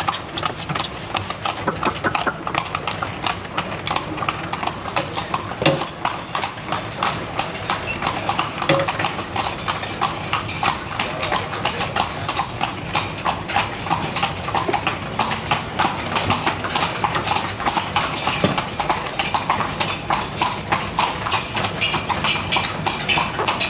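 Carriage horses' hooves clip-clopping steadily on the street as the horse-drawn carriage rolls along, a quick, continuous run of hoofbeats.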